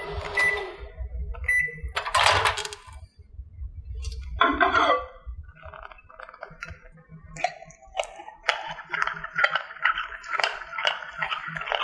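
Microwave oven humming, with two short beeps early on and a clunk a couple of seconds in, likely the door opening. From about eight seconds on, a spoon rapidly clinks and scrapes in a bowl, stirring melted white chocolate chips into heavy cream.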